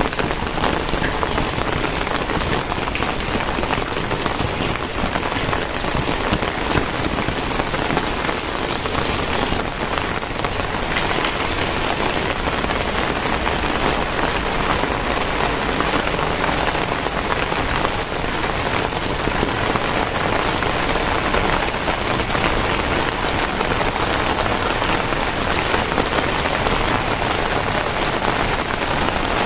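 Very heavy rain pouring down and drumming on surfaces, a dense steady hiss of drops.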